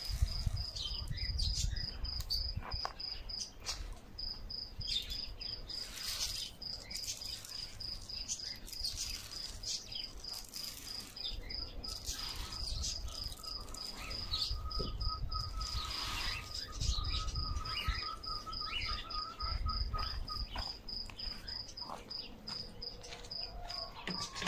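An insect trilling steadily at a high pitch in a fast, even pulse, with scattered short bird chirps. A second, lower steady trill joins it for several seconds in the middle.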